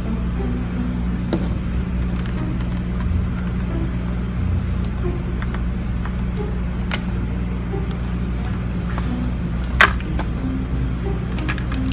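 A steady low engine-like hum with a few sharp clicks and taps over it, the loudest about ten seconds in: handling noise as a microphone is fitted into a motorcycle helmet.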